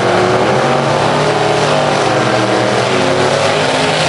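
Drag-racing gasser engines running loud and revving as the blue gasser goes into a burnout.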